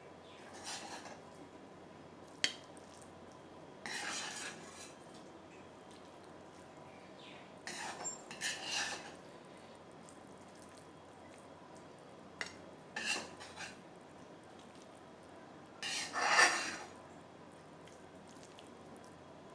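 A spoon scraping and clinking against a pan as cooked chicken seekh kebabs are served out onto a plate, in several separate strokes with pauses between, the loudest near the end.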